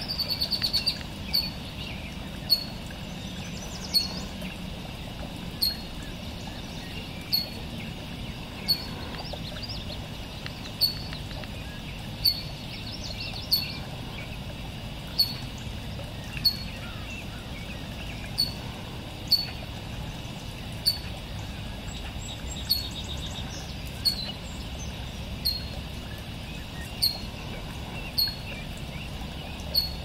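Red-winged blackbird giving a short, sharp call note over and over, about one every second and a half, with a quick run of notes in the first second. A steady low background noise runs underneath.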